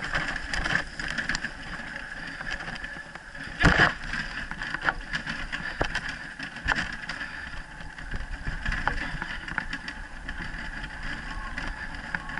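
Wheeled dryland dog-sled rig rolling fast over a dirt trail: a steady rattle and rumble of wheels and frame, with scattered knocks and one louder knock a little under four seconds in.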